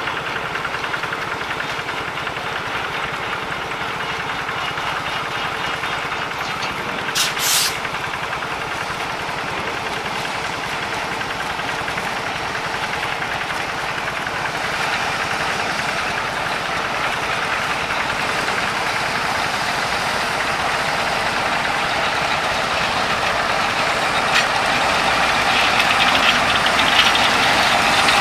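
CC 201 (GE U18C) diesel-electric locomotive running as it draws slowly nearer, its engine growing steadily louder. A short high hiss comes about seven seconds in.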